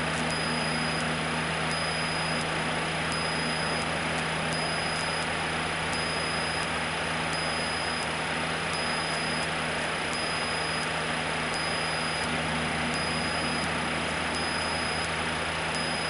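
Cessna 152's four-cylinder Lycoming O-235 engine and propeller droning steadily in cruise flight, with heavy cabin hiss. A faint high beep repeats about every second and a half.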